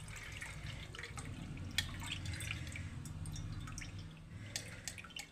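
Water pouring from a steel saucepan through a mesh strainer and dripping into a steel bowl, with a few light clicks as solid pieces of set ghee shift against the metal. A low steady hum runs underneath.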